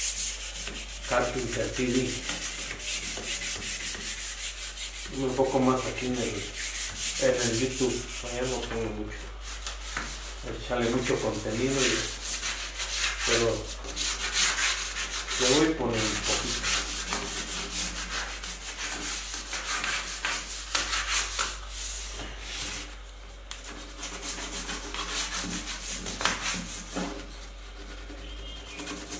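Hand sanding with fine-grit sandpaper: quick back-and-forth rubbing strokes over the sealer-coated wooden side panel of a cabinet, smoothing the finish between coats. A wavering pitched sound comes and goes several times in the first half, louder than the rubbing.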